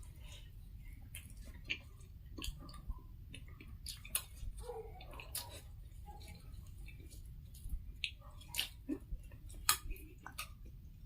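Close-up eating sounds of puri: soft chewing with scattered small mouth clicks and smacks, a few sharper clicks among them.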